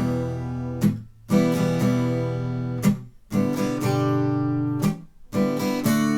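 Acoustic guitar strummed in the gallop pattern, triple strokes down-up-down, moving through E minor, G and D chords. The strings are muted between chords, so the sound cuts off briefly about every two seconds before the next chord rings.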